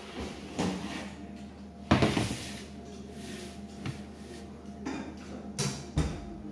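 Metal baking sheet carrying a tart tin set down on a stainless-steel worktable: a loud clank about two seconds in, with several lighter metal knocks before and after. A steady low hum runs underneath.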